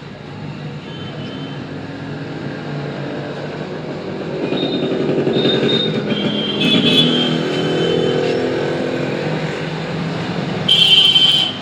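Motor vehicle engine running, swelling in level through the middle, with a few high-pitched tones over it and a short loud hiss near the end.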